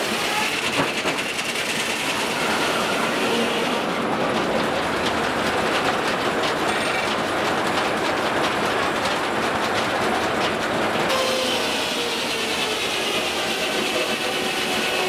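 Steam-powered sawmill's circular saw blade cutting a log as the carriage feeds it through, over the clatter of the carriage and mill machinery. The blade's steady whine gives way to a duller, rougher noise for several seconds in the middle of the cut, then returns.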